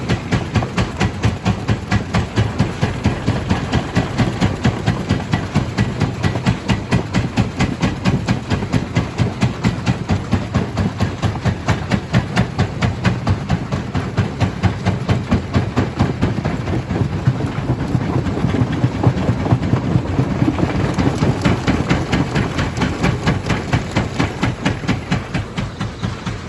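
Small stone jaw crusher running, with a steady low machine hum under a rapid, even knocking rhythm.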